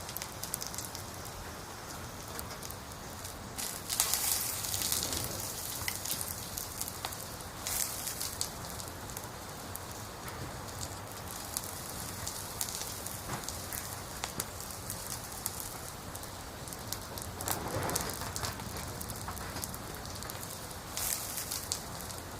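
Burning firewood crackling steadily, with a dense scatter of small pops and a few louder spells of snapping.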